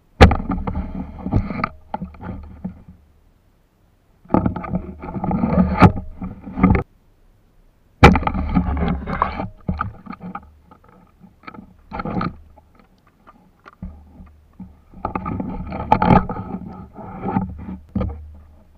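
Shallow water splashing and sloshing as someone wades and works in the tide pool, in several stretches cut off abruptly by moments of silence.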